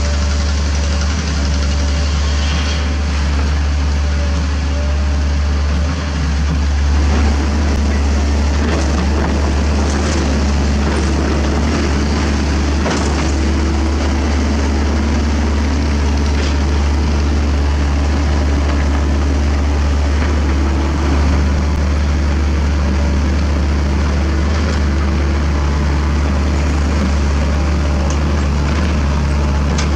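Diesel engines of Kobelco hydraulic excavators running steadily while digging rock, a constant low drone with a few faint knocks.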